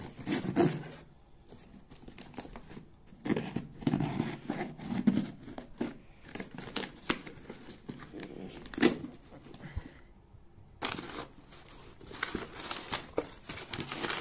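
A cardboard shipping box being cut and torn open with a knife: tape ripping and cardboard flaps scraping and knocking, with a short lull. Near the end the crumpled paper packing inside rustles and crinkles.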